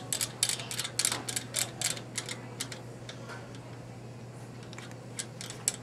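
Combination padlock dial being spun on a metal locker, ticking rapidly for about the first two seconds, then slower, fainter clicks, with two sharper clicks near the end.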